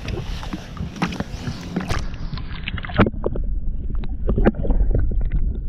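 Handling noise on a microphone aboard a fishing boat: a series of knocks and clicks over a low rumble, with the rumble growing heavier in the second half.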